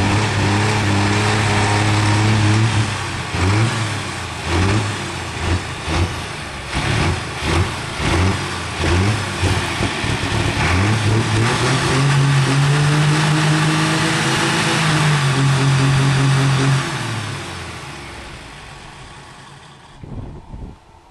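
Diesel super stock pulling tractor engine running: steady at first, then blipped in a string of short revs about once a second, then held at a higher speed for several seconds before winding down and fading out near the end.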